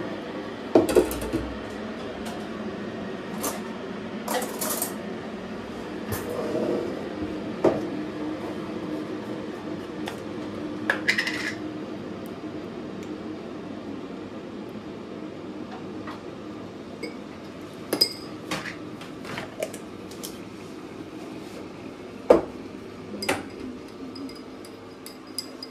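Scattered clinks and knocks of a metal spoon and knife against glassware: a spoon scraping a glass jar and stirring in a drinking glass, over a steady low hum.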